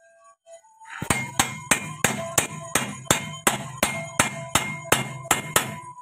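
Steel hammer beating on a tractor's front-axle steering arm where it sits on the spindle. About seventeen rapid blows, roughly three a second, begin about a second in, each with a ringing metallic clang. The blows drive the arm home on the spindle.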